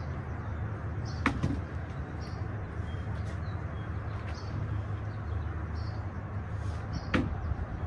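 A wooden panel knocking sharply on plastic sawhorses as it is set down and shifted, once about a second in and again near the end, over a steady low outdoor hum with small birds chirping faintly.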